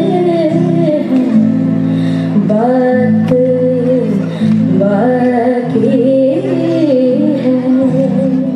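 A woman singing a slow, wavering melody into a microphone, accompanied by an acoustic guitar holding sustained chords.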